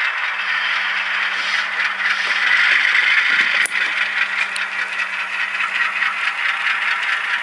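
Model railway diesel switcher and freight cars rolling slowly along the layout track: a steady rattling, scraping clatter of small wheels and motor, with a faint steady hum underneath.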